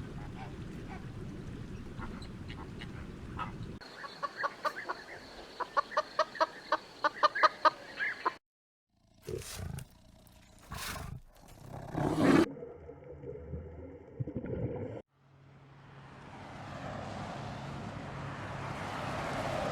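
A run of short animal-call clips cut one after another: a rapid string of repeated pitched calls, about three a second, then a few louder single calls, then a steady noisy stretch.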